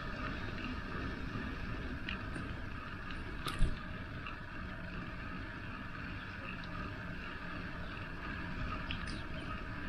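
Riding a bicycle: steady wind and tyre rumble with a few faint clicks, and one sharp knock a little past three and a half seconds in.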